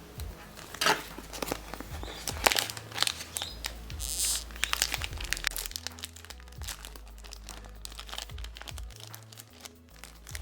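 Toy packaging crinkling and rustling as the playset pieces are unpacked by hand, densest in the first half and sparser later, over quiet background music.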